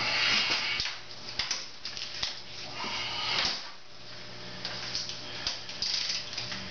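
Hand tools being worked and handled at a motorcycle's cylinder head: irregular metallic scraping and rattling with scattered sharp clicks, over a faint low steady hum.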